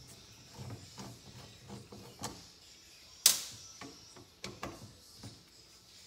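Hand screwdriver backing out the small screws of a motorcycle carburetor's diaphragm top cap: faint scraping and ticking, with one sharp click about three seconds in.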